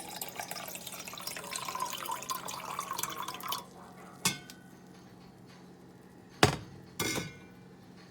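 Liquid pouring into a glass container, the pitch of the pour rising slowly as it fills, stopping about three and a half seconds in. Then a light click and, near the end, two sharp glass knocks, the first the loudest.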